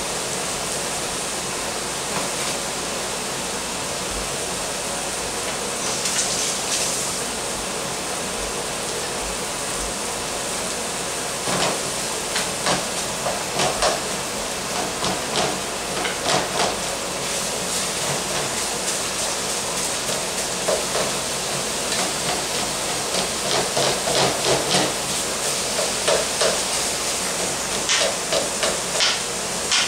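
Beef strips sizzling steadily in a hot skillet on a gas stove. A little before halfway through, a cooking utensil starts clicking and scraping against the pan as the meat is stirred and turned.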